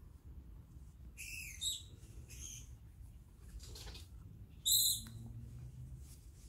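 A few short, high-pitched animal calls, chirps and squawks, over a low steady hum. The loudest comes about two and a half seconds in.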